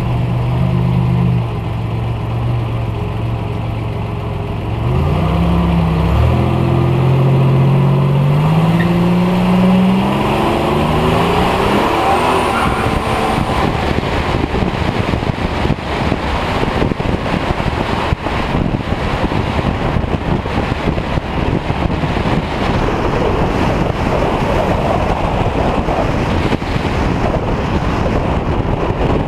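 Buick Regal T-Type's turbocharged V6 running low, then accelerating from about five seconds in, its pitch rising twice as it shifts up. After that, steady wind and tyre noise at speed on the outside-mounted camera drown the engine out.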